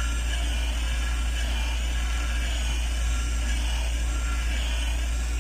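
Steady low electrical hum with a faint high whine, unchanging throughout.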